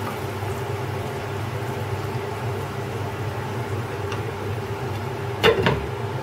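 Steady hiss of prunes and onions simmering in a little water in a frying pan on a gas stove. About five and a half seconds in, a short clatter as a glass lid is set on the pan.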